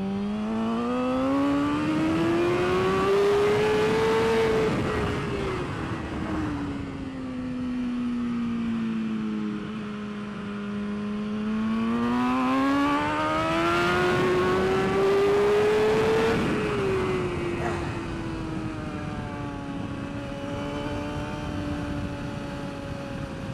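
A BMW S1000RR's inline-four race engine, heard onboard, revs up steadily to high rpm, then falls away as the bike slows. It climbs and drops like this twice, and wind rush rises and falls with the speed.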